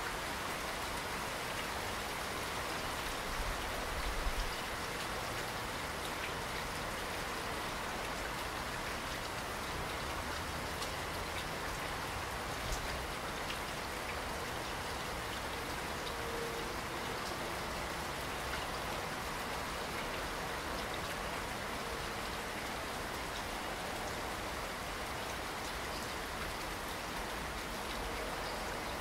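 Steady rain falling, an even hiss with scattered drop ticks. A brief low thump comes about four seconds in.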